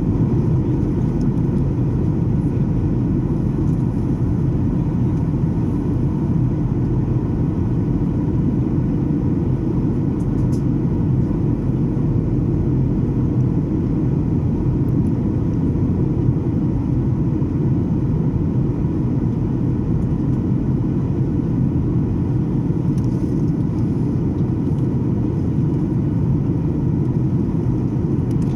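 Cabin noise of a Boeing 737 airliner in flight: a loud, steady low rumble of engines and airflow, unchanging throughout.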